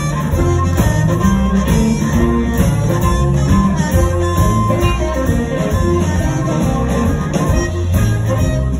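Live blues band playing a shuffle: a blues harp (harmonica) lead over electric guitars and drums, with a repeating bass line.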